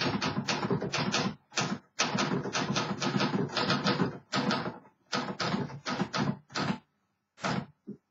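1956 Remington Quiet-Riter manual typewriter being typed on: a fast run of keystrokes, about five a second, thinning out about seven seconds in to a couple of last strokes.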